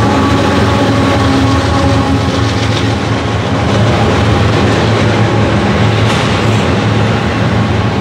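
Loaded double-stack intermodal well cars of a freight train rolling past close by: a loud, steady rumble and clatter of steel wheels on the rails.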